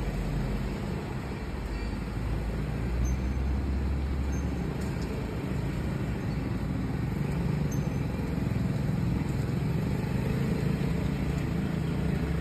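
Street traffic: a heavy truck's engine running as it pulls away, with cars and a motorbike driving past, a steady low rumble throughout.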